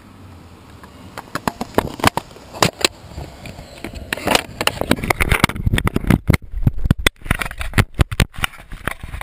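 Handling noise on a GoPro camera in its protective case: fingers rubbing and tapping on the housing right over the microphone, heard as loud, irregular scraping and clicking.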